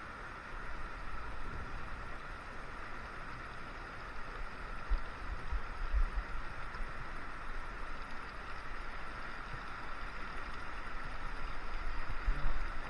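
Shallow mountain stream running over rocks, a steady rushing water sound, with a few low thumps about five and six seconds in.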